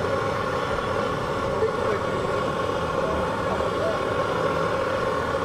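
Steady hum of city street traffic, with indistinct voices in the background.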